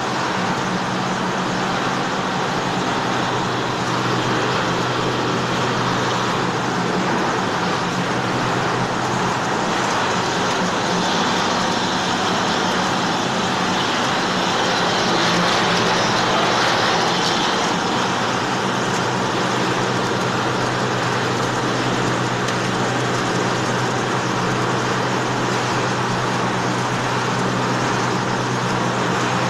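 Snack-chip production line machinery running steadily: a constant low electric-motor hum under an even mechanical din from the conveyors and a rotating seasoning drum, swelling slightly partway through.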